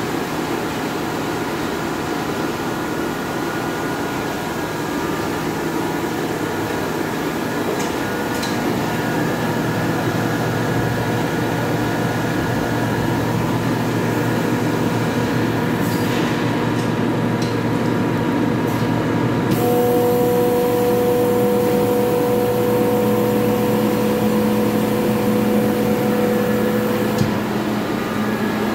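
Tank-mounted air compressor with its air dryer running, a steady machine hum with several constant tones. About two-thirds of the way in a higher steady whine joins the hum and cuts off a little before the end.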